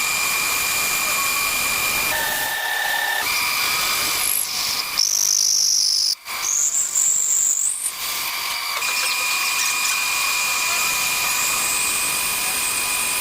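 Wood lathe running with a steady high-pitched whine. Between about five and eight seconds in the pitch jumps to a higher shrill tone, broken by a brief dip near six seconds, before the steady whine returns.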